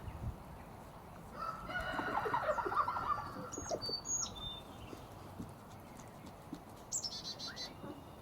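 A rooster crowing once, a call of about two seconds.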